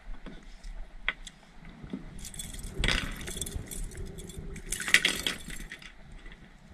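Clinks and rattles of fishing gear being handled on a plastic kayak, with two louder, longer rattling bursts about three and five seconds in.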